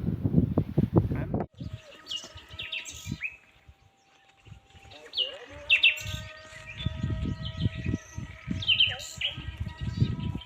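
Small birds chirping in short, high, repeated calls, over a faint steady humming tone and low rumbling on the microphone.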